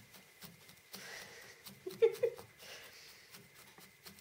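Felting needle repeatedly stabbing through wool into the felting pad, a soft poke about two to three times a second. A brief voice sound about two seconds in.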